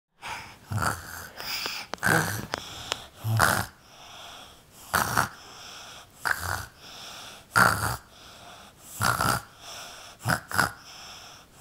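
A person imitating snoring: a string of loud, short, rattly snorts about every second or so, with softer breathing between them.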